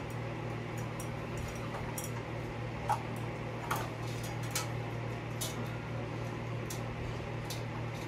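Scattered light clicks and knocks of metal ceiling fan parts being handled, over a steady low hum.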